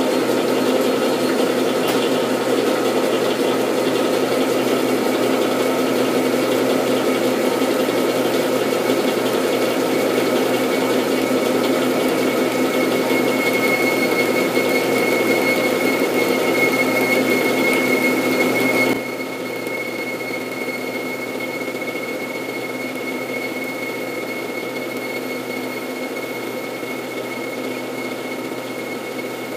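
Metal lathe running, taking a boring cut in the bore of a hard steel gear with a boring bar: a steady machine whine with several held tones, and a thin high whistle joining partway through. About nineteen seconds in the sound drops suddenly to a quieter steady run.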